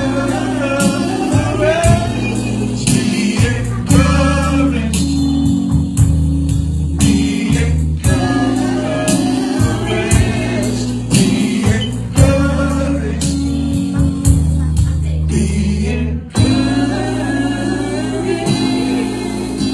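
Live gospel music: a male lead singer with backing voices over bass, drums and guitar, at a steady beat.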